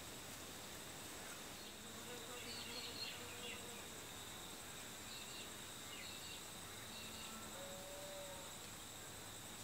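Faint background: a steady high-pitched insect trill, with a few faint short chirps.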